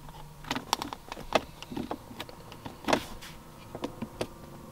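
Irregular clicks of switches and buttons in a 2004 Cadillac XLR's cabin, with the faint hum of a small electric motor in the last second or so.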